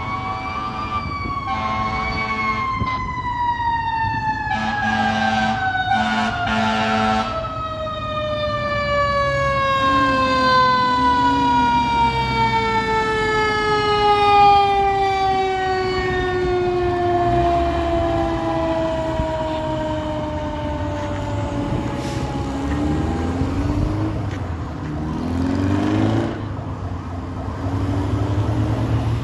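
A fire engine's mechanical siren wails up once, then winds down in one long, slowly falling tone over about twenty seconds as the truck drives past. About five to seven seconds in, three short air-horn blasts cut in. Near the end a siren starts briefly rising again, under the sound of truck engines and traffic.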